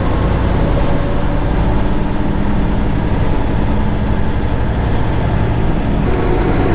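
Semi-truck's diesel engine and road noise heard steadily from inside the cab while driving at highway speed, a low, even hum.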